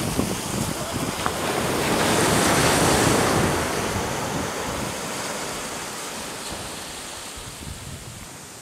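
Small waves breaking and washing up a sandy beach, the rush swelling to its loudest about three seconds in and then slowly fading away, with wind buffeting the microphone at the start.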